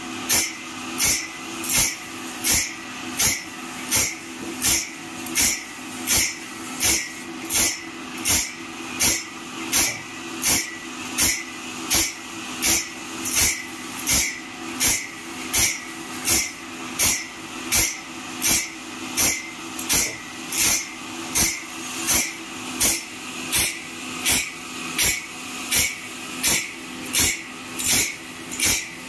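Automatic sawmill band-saw blade sharpener at work: the grinding wheel makes a short hissing grind on each tooth in turn, about one every 0.7 seconds in an even rhythm, over the steady hum of the machine's motor.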